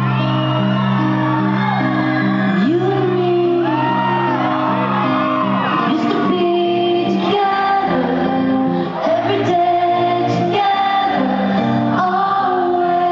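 Live band music in a large hall, heard from the audience: a woman sings into a microphone over sustained low chords, while the crowd shouts and whoops.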